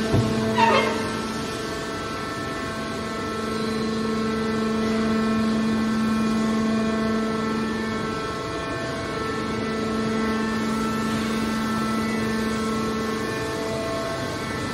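Hydraulic scrap steel baler running with a steady machine drone. A short falling metallic screech comes in the first second.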